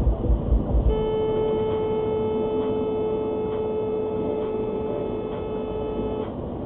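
Car horn held down in one long, steady single-tone honk, starting about a second in and lasting about five seconds: a warning to another driver. A few low thumps, about three a second, come before it.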